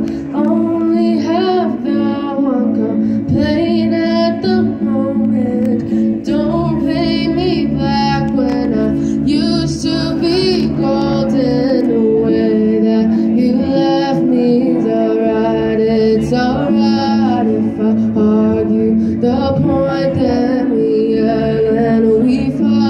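Live amplified performance: a woman singing into a microphone over an acoustic guitar.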